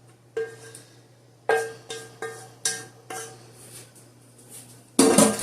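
A utensil scraping and knocking against a pan, a series of sharp clinks that each ring briefly, as the last of the pan's contents is scraped out; a louder clatter comes near the end.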